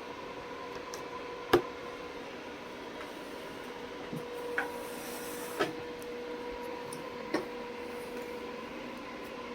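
Quiet room tone with a faint steady hum and a few short sharp clicks, the loudest about a second and a half in.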